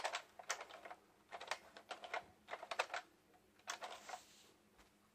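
Clusters of sharp plastic clicks and clacks from an HP laptop docking station's buttons and levers being worked by hand, stopping about a second before the end.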